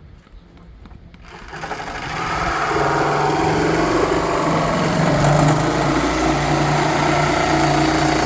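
A handheld power tool starts about a second and a half in and runs steadily at a constant pitch, cutting to enlarge the seat hole in a barrel car of a homemade farm train.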